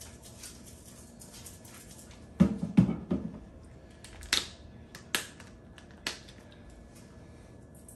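Seasoning bottles being handled over a bowl: a quick cluster of knocks about two and a half seconds in, then three sharp clicks about a second apart.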